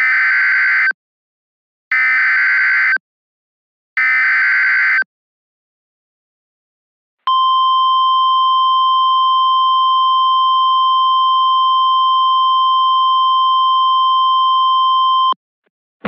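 NOAA Weather Radio Specific Area Message Encoding (SAME) header: three one-second bursts of digital data tones, one every two seconds. After a short gap comes the single steady 1050 Hz warning alarm tone, held for about eight seconds, which marks the start of a severe thunderstorm warning.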